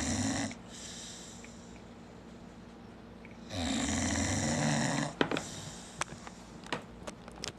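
Dog snoring in deep sleep, in long rasping inhaled snores: one ends about half a second in, and another comes about three and a half seconds in, with quieter breathing between them. A few short clicks follow the second snore.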